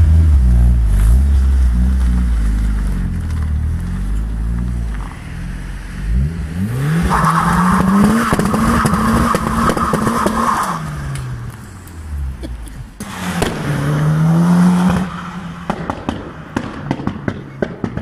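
Ford Escort Cosworth rally car's turbocharged four-cylinder idling with a low rumble at the tailpipe, then revving up about seven seconds in and holding high revs for several seconds with tyre squeal as the wheels spin. The revs fall, climb again briefly, and near the end a string of sharp exhaust bangs and pops follows as the throttle is lifted.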